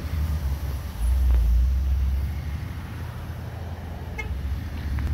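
Low rumble of outdoor vehicle noise, louder for a while about a second in, with a short car horn toot about four seconds in.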